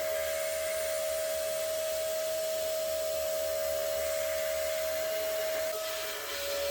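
A small electric motor, likely a workshop power tool, running steadily with a high whine over a hiss; the whine wavers and dips briefly near the end.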